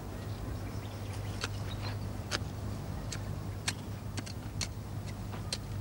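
Hand trowel digging and weeding in garden soil: scattered short scrapes and clicks, about one or two a second, over a steady low hum.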